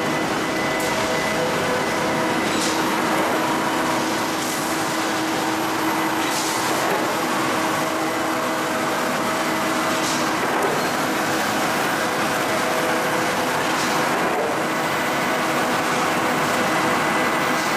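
Cold-rolled ribbed steel bar production line running: a loud, steady mechanical din with several steady hum tones, broken by short hisses every few seconds.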